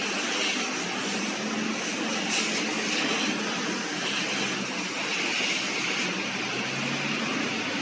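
Large 100 kg industrial washing machine running, a steady mechanical noise with a faint low hum underneath.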